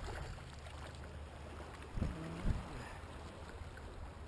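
A hooked sea bass splashing at the surface while being played on a lure rod, over a steady wash of sea water and wind. A brief low hum is heard about two seconds in.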